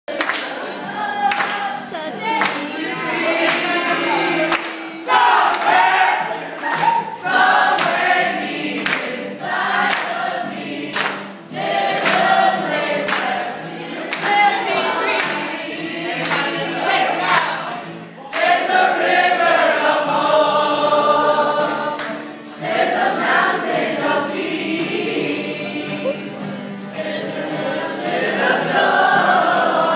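A youth choir of young men and women sings a song together, over a sharp regular beat.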